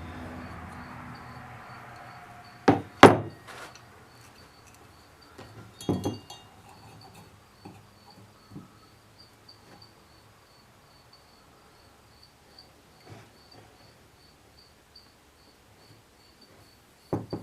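Sharp metal knocks and clanks from an easy out being worked into a broken-off brass fitting with a hammer and adjustable wrench: two loud knocks about three seconds in, another about six seconds in, then faint clicks and a few more near the end. A cricket chirps steadily throughout.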